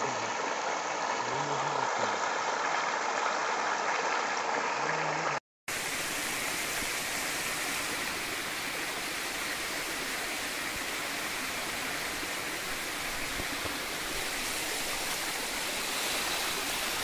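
Steady rush of water pouring over a concrete channel wall into a shallow stream. It breaks off for a moment about five seconds in, then resumes as a brighter, fuller rush.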